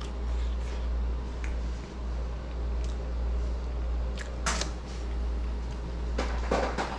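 Steady low hum underneath, with a few faint clicks and small sharp clatters of someone eating and handling a plate and cutlery. The loudest clatter comes about four and a half seconds in, and a quick cluster follows near the end.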